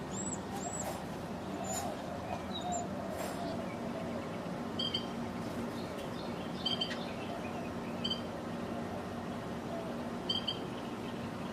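Small birds chirping: a quick run of high, thin chirps in the first second, then short high peeps every second or two, over a steady low hum.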